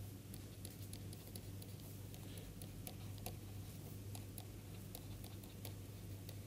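Faint, irregular light clicks of a stylus tip tapping and stroking on a pen tablet as letters are written by hand, over a steady low electrical hum.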